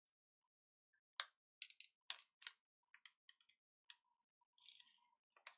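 Scattered small clicks and taps of tools and plastic or metal tablet parts being handled during disassembly, with a short scrape just before the end.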